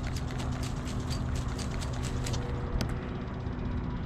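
Spinning fishing reel being cranked fast, its rapid even clicking stopping about two and a half seconds in, over a steady low rumble.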